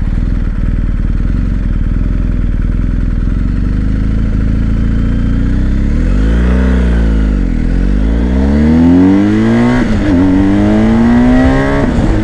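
BMW R1250GS HP's boxer twin idling at a standstill, then revved once and launched at full throttle. The engine note climbs hard, dips briefly at an upshift just before ten seconds in, and climbs again to a second shift near the end.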